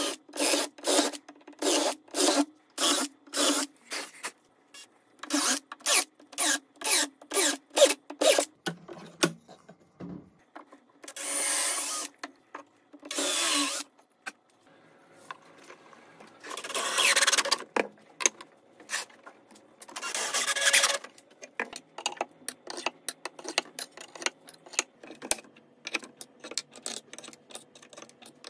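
Woodworking on a wooden strip: a fast run of rhythmic rasping strokes, about two to three a second, then several longer bursts of cutting or sanding noise, and near the end a quick series of light clicks and taps.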